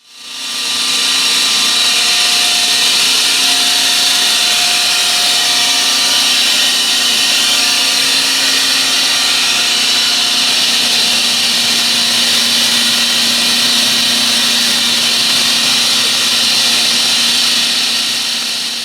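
Mattei EMS 750 75 hp rotary vane air compressor running steadily: a loud, even hum with a strong airy hiss, fading in over the first second.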